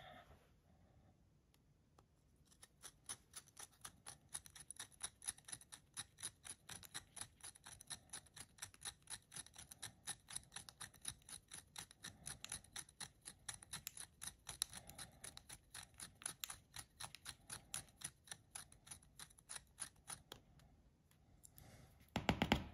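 Hand pin-vise drill slowly turned through a 0.2 mm aluminium sheet over plastic, making a long run of quick, even scratchy ticks as the bit cuts. Near the end comes a brief, louder knock of the work piece being handled.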